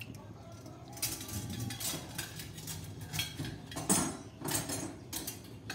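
Raw chicken pieces dropped by hand into water in a steel kadai, making irregular knocks and clatters against the pan that start about a second in.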